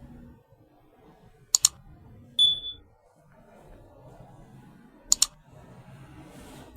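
A smoke detector gives one short, high-pitched beep, loud and steady in pitch. It comes just after a pair of sharp clicks, and another pair of clicks follows about three seconds later.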